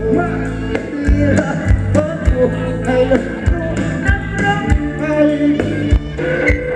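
Live band playing Thai ramwong dance music, with a steady drum beat under bass and melody.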